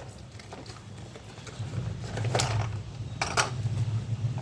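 A toy train set's box and packaging being opened by hand: irregular rustling and scraping, with two louder crackles about two and three seconds in.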